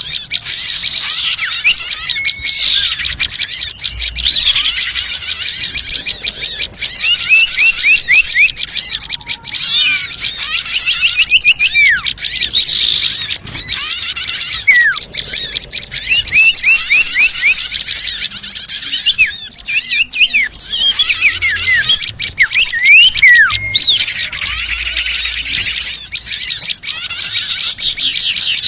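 Loud, dense chorus of many small birds chirping and twittering together, with runs of quick falling notes. It is a bird-lure call ('suara pikat') of noisy small birds, played to draw small birds in.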